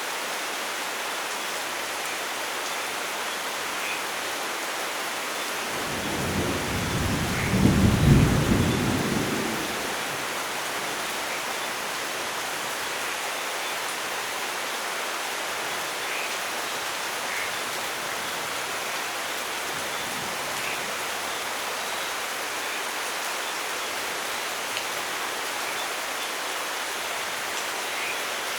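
Steady heavy rain, with one roll of thunder rumbling up about six seconds in, peaking around eight seconds and fading by ten.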